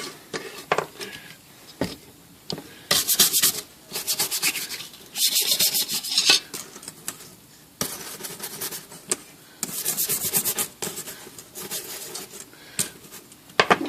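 Bristle brush scrubbing a typewriter casing cover, in quick back-and-forth runs of strokes with short pauses between them.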